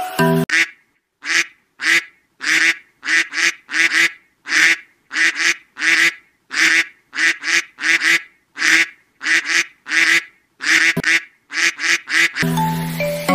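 A duck quacking over and over in short calls, about two a second, with clean silences between them; background music comes back near the end.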